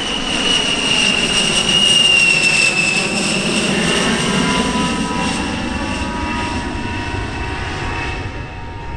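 A-10 Thunderbolt II's twin TF34 turbofan engines as the jet flies past overhead: a high steady whine over a rumble, loudest about two seconds in. The whine drops slightly in pitch as the jet goes by, then the sound slowly fades.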